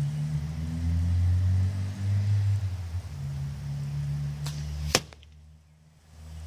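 A carbon arrow striking a tape-wrapped block target with one sharp smack about five seconds in, a faint click half a second before it. A low steady rumble runs underneath until the hit.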